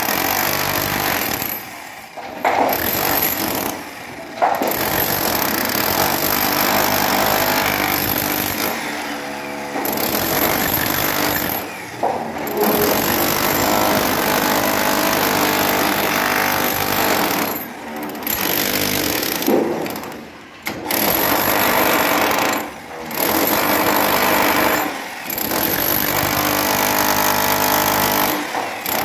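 Handheld demolition hammer chiselling into a reinforced concrete slab, breaking it up. It hammers in long runs with short breaks every few seconds.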